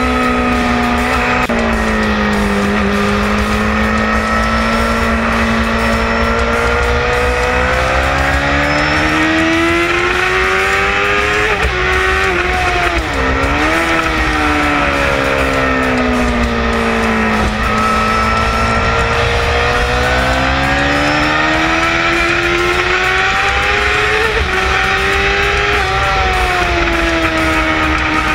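Suzuki sport motorcycle's engine at racing speed, heard from an onboard camera with wind rushing past. The engine note climbs slowly under long acceleration, drops sharply about halfway through as the rider brakes and shifts down, sags again, then climbs once more.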